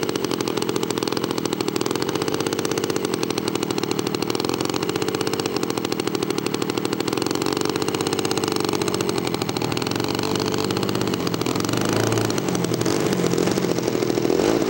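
Radio-control model airplane engine running steadily close by, its pitch wavering slowly up and down with small throttle changes.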